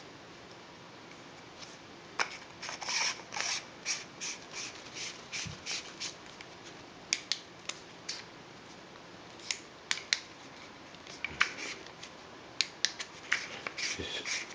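Thrunite TN31 flashlight's aluminium body being screwed together and handled: short scratchy rasps and clicks in uneven runs, the threads being turned by hand.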